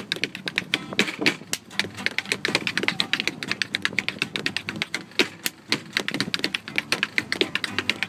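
Tap shoes striking a dance board in fast, irregular runs of sharp metal taps, several a second, some accented louder than others.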